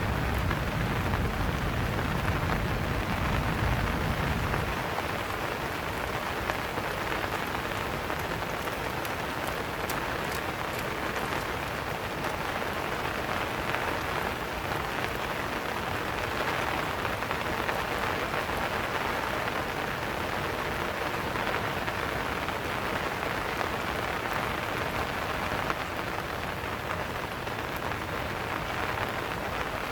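Steady rain falling and pattering on surfaces, an even hiss throughout. A low rumble sits under it for the first few seconds and then fades out.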